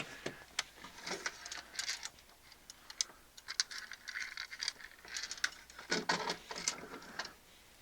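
Small metal parts of a turntable's spindle bearing being handled on a workbench: scattered light clicks and taps, with short rubbing and scraping noises in between.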